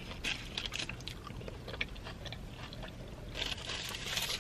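Close-up chewing of a mouthful of burrito with the mouth closed: soft, wet, irregular clicks and smacks, with a short rustling hiss near the end.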